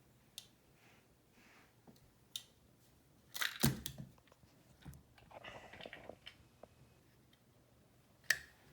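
Light clicks and knocks of plastic Lego pieces as a built model rocket is picked up and handled. The loudest knocks come in a short cluster a little before halfway, with a soft rustle after it.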